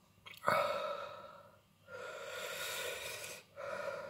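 A man breathing heavily through his mouth from the burn of a whole 7 Pot Douglah chilli pepper: a sharp gasp about half a second in, then long, heavy breaths, about one every one and a half seconds.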